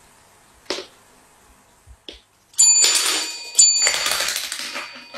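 A chain of toppling dominoes clattering, with a desk service bell struck twice about a second apart, its ring fading slowly under the clatter. Two single clicks come before it.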